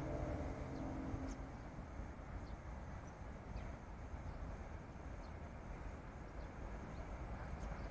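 Small birds chirping briefly several times over a steady low rumble, with a faint hum that fades out in the first second and a half.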